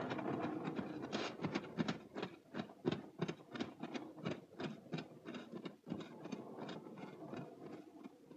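Wooden cart rolling over rough ground, its wheels and frame knocking and rattling in quick, irregular strokes over a low rumble. The rattling thins out over the last couple of seconds and cuts off suddenly at the end.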